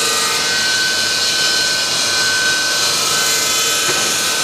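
PVC brick pallet extrusion line machinery running: a steady, loud hiss with a thin whine held at one pitch.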